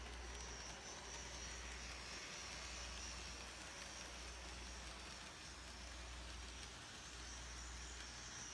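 Model train running around its track loop: a steady whirring hiss with a low hum underneath.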